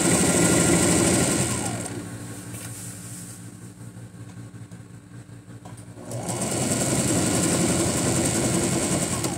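Domestic electric sewing machine stitching a skirt's side seam. It runs in two bursts, a short one at the start and a longer one from about six seconds in, with a stop of a few seconds between them while the fabric is repositioned.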